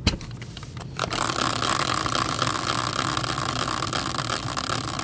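A hand-spun caster wheel used as a team randomizer knocks as it is set going, then whirs steadily on its axle from about a second in, with a rubbing, scraping hiss.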